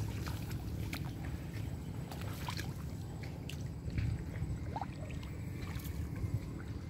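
Shallow water sloshing and splashing as someone wades through flooded grass and hauls in a cast net, with scattered small clicks over a steady low rumble.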